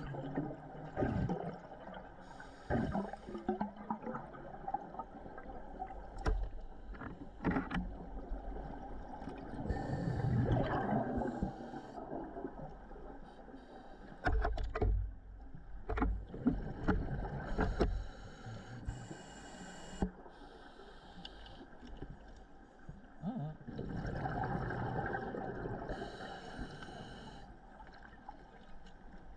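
Scuba regulator breathing heard underwater: a hissing inhalation about every eight seconds, with exhaled bubbles gurgling and popping in between.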